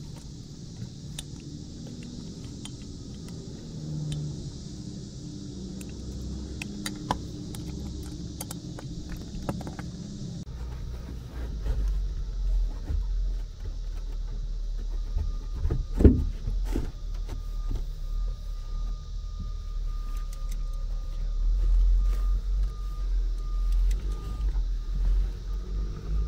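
Light metallic clicking and scraping of a hex key working inside an aluminium project junction box, then handling knocks and rubbing with a low rumble underneath, and one sharp knock partway through.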